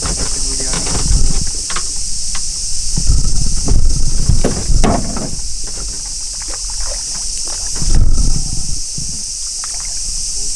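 Knocks, clatters and rustles of handling inside a small fishing boat, loudest about three to five seconds in and again around eight seconds, over a steady high drone of insects.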